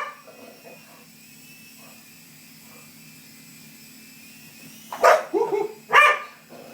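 Small dog barking: one bark at the start, then a quick run of barks about five seconds in. Under the barks, the steady hum of a toy helicopter's rotor motor.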